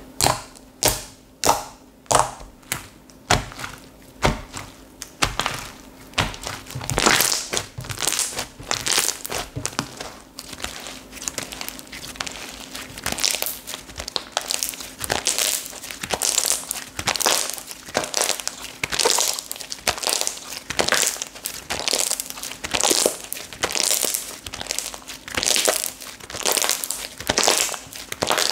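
Slime being squeezed and stretched by hand, a long-neglected slime. It gives about eight sharp pops roughly twice a second, then crackly, crinkling squeezes about once a second.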